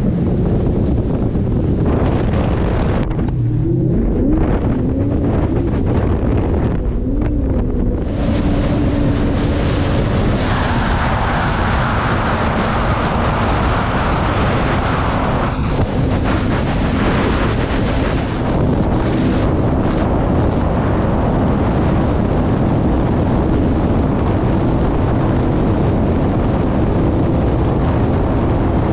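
Twin Mercury Racing 300R V8 outboards running at speed on a catamaran performance boat, under heavy wind noise on the microphone and the rush of water off the hull. The engine pitch wavers a few seconds in and then holds steady, while the wind and water hiss gets brighter and louder about eight seconds in.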